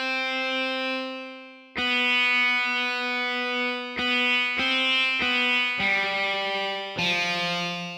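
Instrumental rock music led by a distorted electric guitar playing a slow melody. A long held note fades away, a new note sounds about two seconds in, and a run of shorter notes follows.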